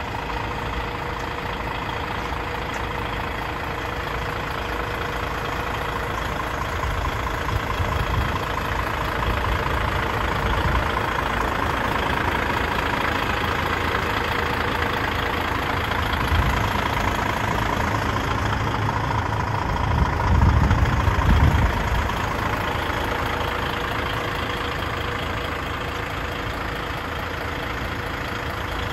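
The diesel engine of a 2008 DAF XF105.460 tractor unit, a PACCAR MX 12.9-litre straight-six, idling steadily. A louder low rumble comes in briefly about twenty seconds in.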